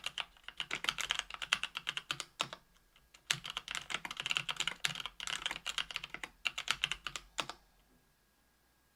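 Typing on a keyboard with stock Kailh Pro Burgundy linear switches, aluminium plate and case (KBDfans Tofu 65%) and GMK keycaps: rapid keystrokes with a short pause about two and a half seconds in. The typing then stops about a second and a half before the end.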